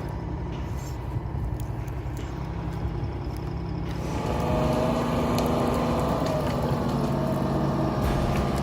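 Heavy machinery's diesel engine running steadily, getting louder with more mid-range noise from about four seconds in.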